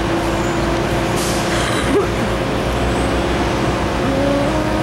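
Tractor-trailer's diesel engine running as the truck drives slowly past at close range, a steady low rumble, with a short hiss about a second and a half in.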